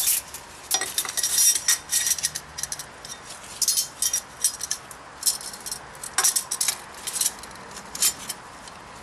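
Light metal clinks and rattles as the low-reverse piston's return spring and steel spring retainer are handled and set down into the aluminium transmission case, in several short clusters of clicks.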